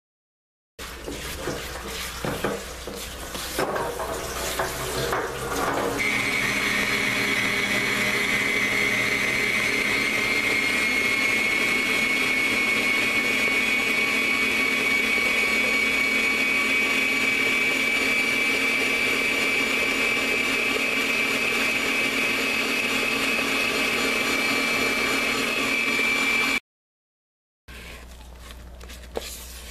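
Electric stand mixer running steadily, beating butter-cake batter, with a steady high whine over its motor hum. It starts about six seconds in, after a few seconds of a spatula scraping and knocking in the bowl, and cuts off abruptly near the end.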